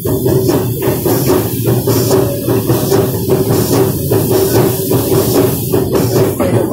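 Running noise of a narrow-gauge steam train, badly garbled by a recording fault: a loud, steady drone chopped up by rapid, regular dropouts that give it a stuttering, almost musical beat.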